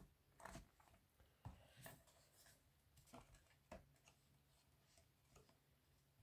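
Near silence with a faint low hum and a few soft, scattered rustles and taps of white cardstock being pressed and handled.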